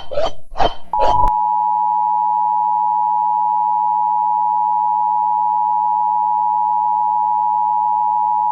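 Emergency Alert System attention signal: a steady two-tone beep just under 1 kHz, cutting in about a second in after a few chopped bursts of a cartoon voice and holding unbroken.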